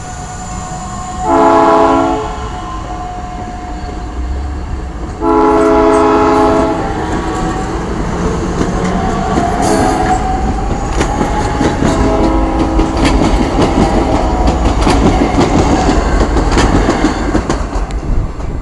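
South Shore Line electric passenger train departing. Its horn sounds twice, a short blast about a second in and a longer one about five seconds in. Then the steel wheels roll and click steadily over the rail joints, growing louder as the cars pass close by.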